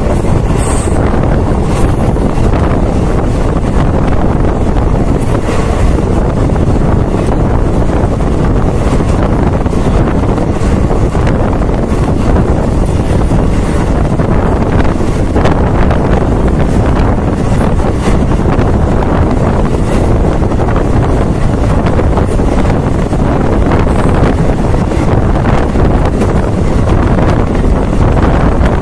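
Heavy wind rushing over the microphone at an open doorway of a moving train, with the train's steady running rumble underneath.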